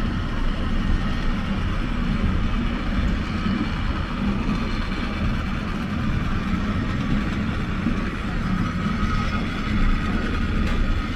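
Water-powered funicular carriage of the Lynton and Lynmouth Cliff Railway running up its steep track, a steady rolling noise of its wheels on the rails.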